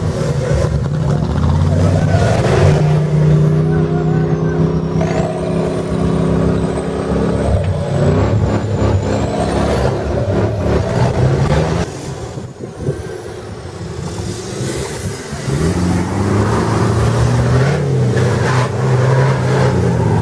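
Competition off-road 4x4 trial vehicle's engine revving and labouring, its pitch stepping up and down with the throttle, and a thin high whine wandering above it. The engine drops off for a moment about twelve seconds in, then picks up again.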